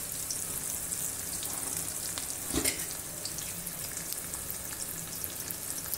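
Chopped onion and ground spices frying in hot oil in a steel kadhai: a steady, high sizzle, with one short knock about two and a half seconds in.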